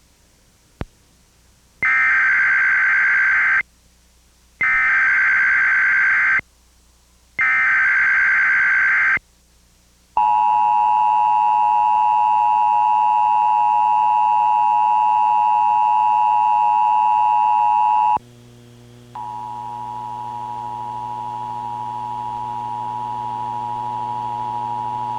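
Emergency Alert System activation tones: three short bursts of the SAME digital header, each under two seconds, then the roughly eight-second two-tone EAS attention signal (853 and 960 Hz). After a short pause comes a steady low hum that slowly grows louder.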